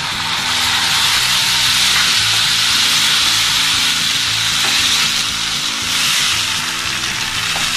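Tomato purée sizzling as it hits hot oil and tempered spices in a kadai, stirred with a wooden spatula: a steady, dense hiss.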